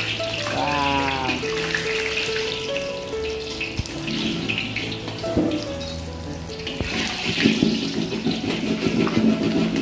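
Hot oil sizzling and bubbling steadily around a whole breaded chicken as it deep-fries, with background music.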